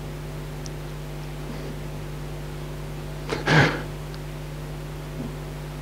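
Steady low electrical hum of a public-address system, with one short loud burst of noise about three and a half seconds in and a couple of faint clicks.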